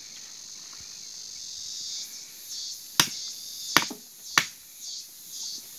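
Babassu palm nuts being struck to crack them open: three sharp knocks about three seconds in, a little under a second apart, over a steady high drone of insects.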